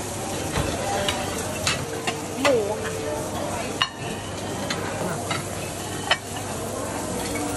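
Meat sizzling on a buffet grill, a steady hiss, with several sharp clinks of metal tongs and china plates.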